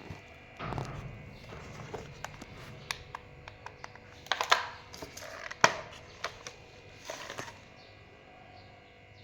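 Handling noises from unboxing a toy RC car: scattered rustles and light clicks of packaging and plastic, with two sharper knocks about four and a half and five and a half seconds in.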